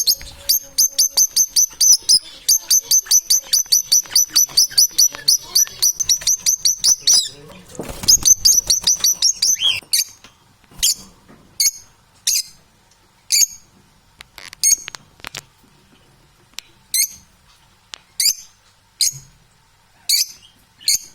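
A small bird chirping: a fast run of high, sharp chirps, about five a second, for some seven seconds, then a brief noisy rustle, then single chirps about once a second.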